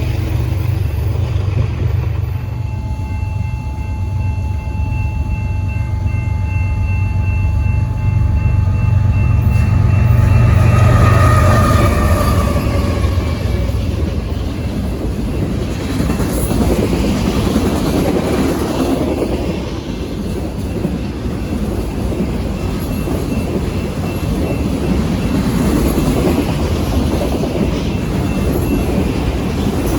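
Train passing close by. A deep locomotive engine rumble, with faint steady tones over it, lasts about the first twelve seconds, then gives way to the rushing, rattling noise of rail cars rolling past.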